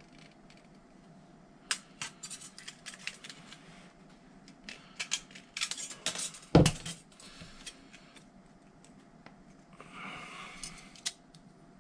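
Pure nickel strip being cut with snips and handled: a run of sharp metallic clicks and snips, with one heavier knock about six and a half seconds in and a short scraping rustle near the end.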